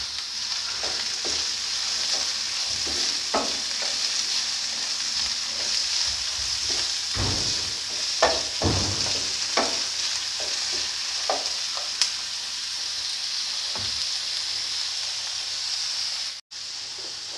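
Chopped onions and ginger-garlic paste sizzling in hot oil in a non-stick frying pan, with a steady hiss and irregular knocks and scrapes of a spatula against the pan as they are stirred. The sound cuts out for a moment near the end.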